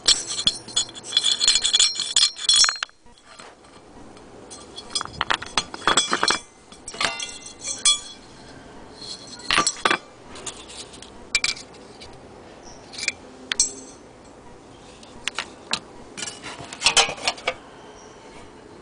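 Brass parts of a vintage Radius No 42 paraffin pressure stove clinking and knocking as they are handled: a dense run of clinks over the first three seconds, then scattered single clinks and short clusters.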